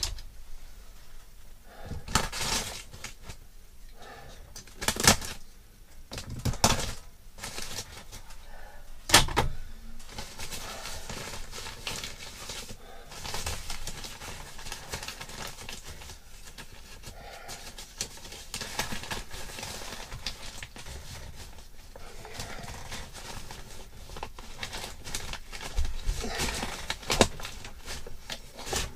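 Handling noise from fitting a round light fitting into a hole cut in a wooden plank ceiling: a few sharp knocks in the first ten seconds, then a long run of light clicks and rustling.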